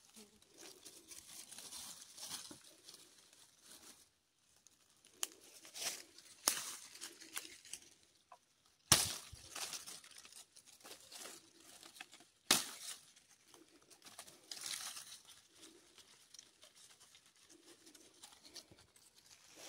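Dry leaves, twigs and brush rustling and crackling as hands work in the undergrowth to set a ground trap, with a few sharp snaps or knocks, the loudest about nine and twelve and a half seconds in.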